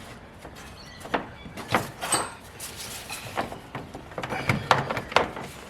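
Irregular metallic clicks, clunks and short scrapes of a hand wrench turning the engine's crankshaft by hand.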